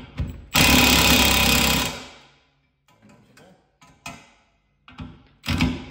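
Cordless impact wrench hammering a bolt tight in one burst of about a second and a half, starting about half a second in, with a few short clicks before it. It starts hammering again at the very end.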